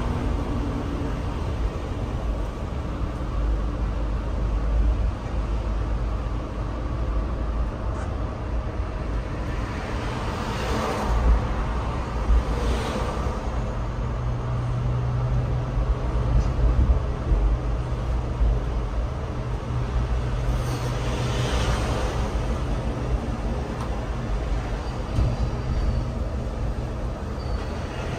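Motor vehicle running, a continuous low rumble of engine and road noise. A steadier low hum comes in for several seconds midway, and there are a few brief swells of noise.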